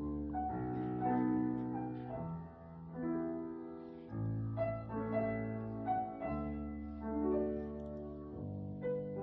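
Slow piano music: sustained chords with deep bass notes, changing every second or two.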